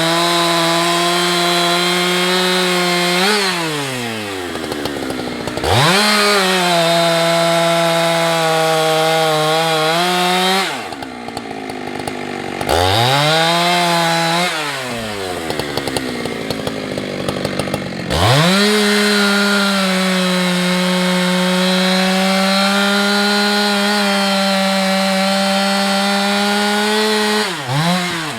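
Husqvarna 365 two-stroke chainsaw cutting through wood at high revs, held steady through four long cuts, with the engine dropping back between cuts and briefly idling around the middle.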